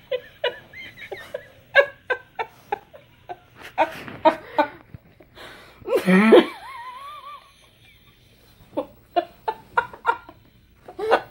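A woman's stifled laughter in a run of short, breathy bursts, with a louder, drawn-out squeal about six seconds in, a short lull, and more bursts near the end.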